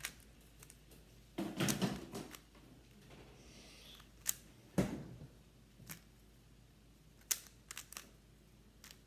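Plastic 3x3 speed cube being turned by hand to scramble it: scattered sharp clicks and clacks of the layers snapping round, with a busier spell of turning about one and a half seconds in.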